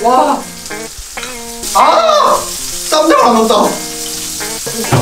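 A person's wordless vocal sounds with a wavering pitch, three times, over background music with held notes and a steady high hiss.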